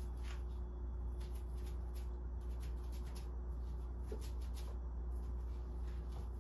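Paint being applied to a wooden kitchen cabinet: soft, irregular scratchy strokes. A steady low hum runs underneath.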